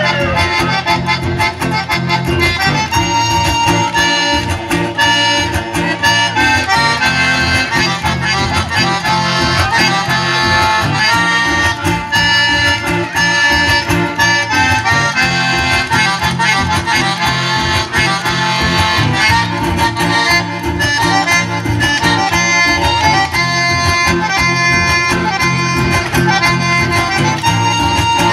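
Live band instrumental: a button accordion plays the melody over strummed acoustic guitars with a steady beat, no singing.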